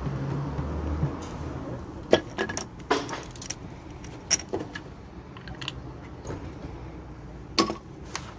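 Small metallic clicks and clinks from a screwdriver and reflector parts being handled on a metal bike trailer and set down on concrete: about a dozen short sharp knocks spread out, the loudest about two seconds in and another near the end. A low hum stops about a second in.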